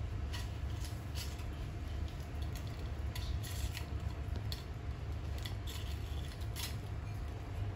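Puppies playing on a tile floor: scattered light clicks and ticks as a puppy chews a small red plastic toy and paws scrabble on the tiles, over a steady low background rumble.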